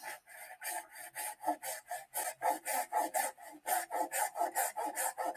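Handsaw sawing through a plastic drain pipe in fast, even back-and-forth strokes, about six a second.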